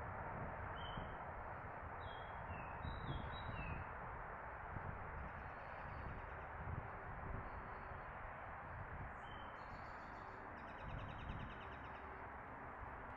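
Songbirds chirping in short, falling notes, with a buzzy trill near the end, over a steady outdoor background noise.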